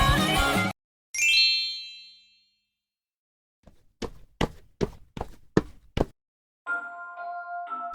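A single bright ding rings out and fades over about a second. After a pause comes a run of about seven sharp knocks, roughly three a second. Near the end a steady tone of several notes begins.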